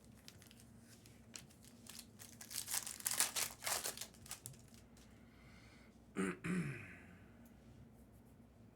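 A trading-card pack's foil wrapper is torn open and crinkled, with a cluster of crackling strokes in the middle. A short throat-clearing sound comes about six seconds in.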